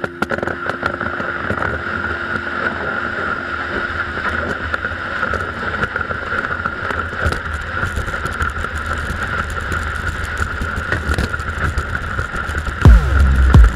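Toboggan runners scraping and hissing over a packed snow track during a downhill run, a steady rushing sound. Near the end, loud low thumps set in.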